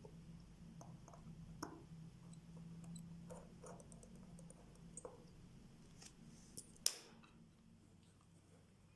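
Faint, scattered small clicks and taps of tools on the parts of a Vostok Amphibia watch movement being taken apart, with one sharper click a little before 7 seconds in. A faint steady low hum lies underneath.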